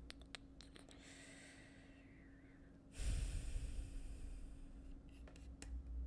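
A man's long, close exhale into the microphone about halfway through, with a few light clicks at the start and again near the end.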